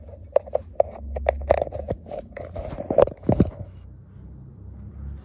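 Barbell and weight plates being handled: a string of sharp metal clicks and knocks, the loudest around three seconds in, then they stop.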